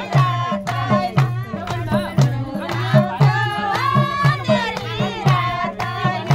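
Nepali folk song: high singing over a steady, evenly repeating drum beat, with hand claps.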